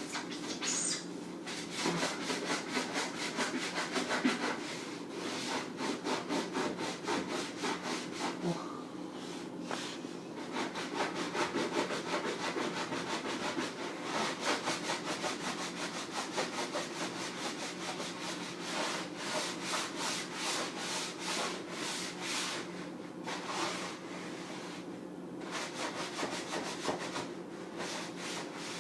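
A sponge scrubbing the inside of a refrigerator in rapid back-and-forth strokes, pausing briefly a few times.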